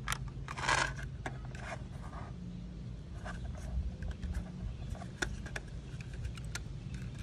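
Light plastic clicks and taps from handling an opened intercom's plastic housing and circuit board, with a brief rustle about half a second in, over a steady low rumble.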